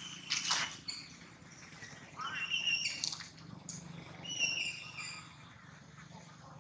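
High-pitched animal chirps: short notes repeated several times, with a brief louder burst about half a second in and a rising squeak a little after two seconds.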